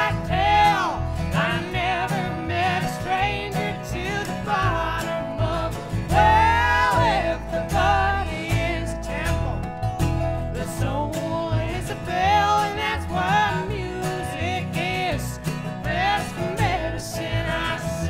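Acoustic string band playing live in a country/bluegrass style: acoustic guitar, resonator guitar and upright bass, with a woman's lead voice and a man's voice singing in close harmony.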